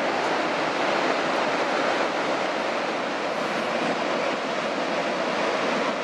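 Montmorency Falls in spring flood, a large waterfall pouring in a steady, dense rush of falling water.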